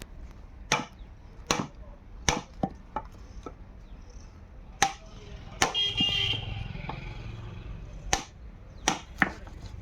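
Sharp, irregular knocks on wood, about nine in all, some in quick pairs, as in carpentry hammering or chiselling. A short high-pitched sound with a low rumble comes in about six seconds in.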